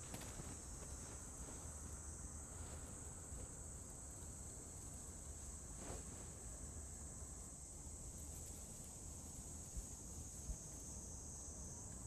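Steady high-pitched chirring of crickets, with a faint click about six seconds in.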